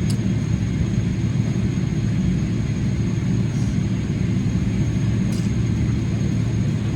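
Boeing 777-300ER cabin noise on the ground after landing: a steady low rumble with a thin, faint high whine, and a couple of faint ticks.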